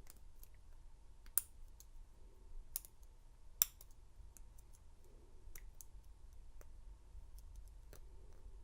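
Lock pick and tension wrench working the five-pin cylinder of a Master Lock No. 230 padlock: scattered light clicks and ticks of the pick on the pins, with two sharper clicks about a second and a half and three and a half seconds in.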